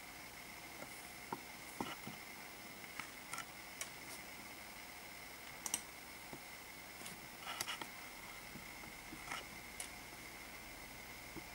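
Faint room hiss with a thin, steady high whine, and a scattering of short, soft clicks at irregular intervals, the sharpest about halfway through.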